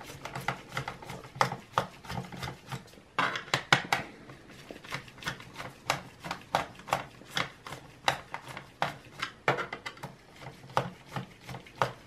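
Mini Phillips screwdriver backing out small screws from a laptop's plastic bottom panel: a run of quick, irregular clicks and taps of metal against plastic.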